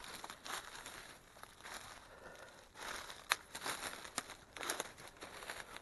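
Footsteps crunching through dry fallen leaves, one step about every half second to a second, with one sharp click about three seconds in.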